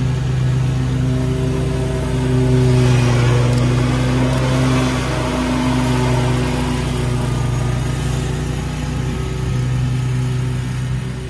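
Scag Tiger Cat II zero-turn mower mowing, its engine running steadily with the blades cutting grass. The rush of the engine and blades swells as the mower comes close, loudest about three seconds in, then eases as it turns and moves away.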